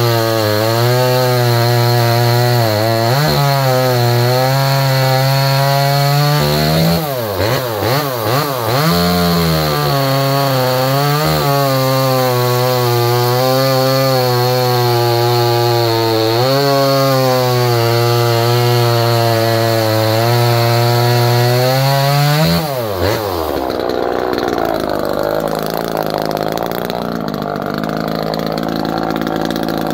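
A 25cc two-stroke top-handle chainsaw runs at high revs while cutting through log rounds; its pitch dips and recovers as the chain loads in the wood. About seven seconds in it is revved up and down a few times. About three quarters of the way through, the throttle is let off and the high running stops.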